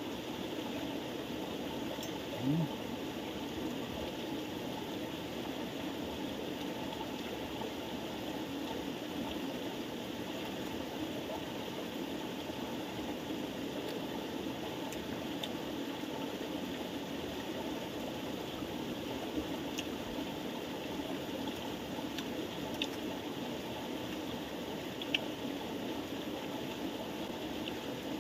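Steady rush of flowing water, like a stream, with a few faint clicks and a brief low sound about two and a half seconds in.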